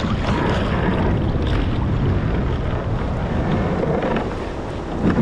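Wind buffeting the microphone over water sloshing around a kayak, with a short sharp knock just before the end.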